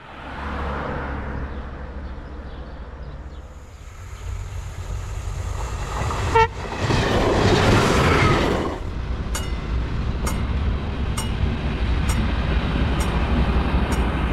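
HŽ 7121-series diesel railcar running with a low rumble, giving a short horn toot about six seconds in. The loud rush of the unit passing close by follows, then sharp clicks about once a second over the steady running.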